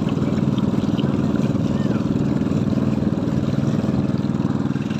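Small motorboat's engine running steadily under way, with water splashing along the hull.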